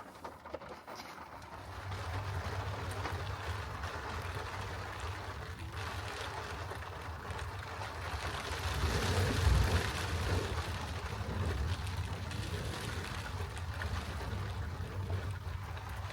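Rain falling on the roof of a small camper cabin, heard from inside, over a steady low rumble. The rain swells about halfway through, then eases a little.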